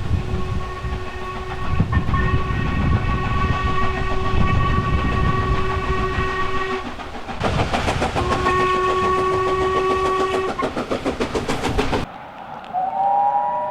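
Steam locomotive whistle sounding one long single-note blast, then a second shorter blast of the same pitch, with the engine's fast exhaust beats chuffing around and after it. Near the end a different locomotive's chime whistle sounds several notes together.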